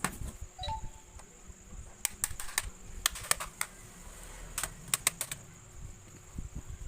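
Sharp plastic clicks and snaps from a laptop's plastic case being pried apart: a run of clicks about two seconds in, and another cluster around five seconds. These are the clips of the case releasing.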